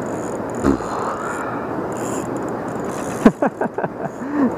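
Steady rush of water pouring through the dam into the tailwater pool. About three seconds in there is one loud sharp knock, followed by a few smaller knocks.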